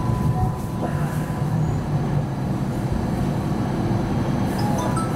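Hong Kong Light Rail Phase I car running, a steady low rumble of motors and wheels on the rails heard inside the passenger cabin, as the train pulls into a stop. Short high chirps begin near the end.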